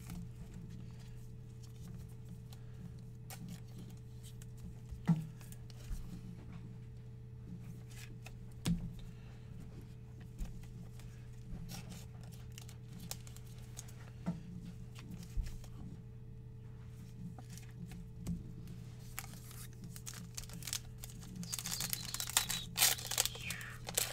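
Trading cards being handled and slid through the hands, with scattered soft clicks over a steady low hum. About three seconds before the end, a foil trading-card pack is torn open with a burst of loud crinkling.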